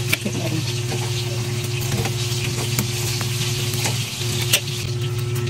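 Kitchen knife cutting through a raw kalabasa (squash) wedge on a chopping board, with a few sharp clicks of the blade meeting the board, the loudest about four and a half seconds in. A steady low hum runs underneath.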